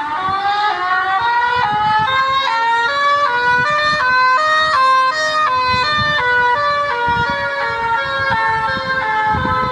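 Two-tone siren alternating between a high and a low pitch about three times a second, its overall pitch slowly rising and then falling again, over a low rumble.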